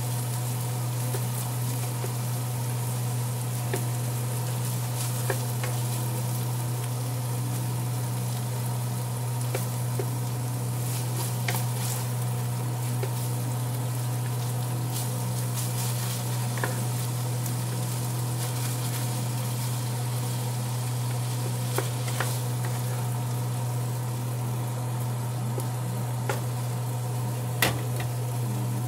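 Ground beef sizzling as it browns in a skillet, stirred and broken up with a wooden spatula that scrapes and clicks against the pan now and then, over a steady low hum.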